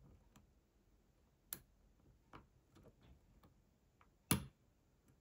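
Light, irregular clicks of a lock pick working the pin stacks of a brass pin-tumbler euro cylinder, with one louder click about four seconds in.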